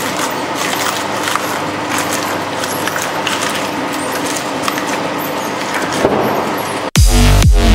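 Dual-shaft shredder running steadily with a motor hum, its cutter discs chewing through watermelon rind with scattered crackling clicks. Near the end it cuts off abruptly and electronic dance music with a heavy beat takes over.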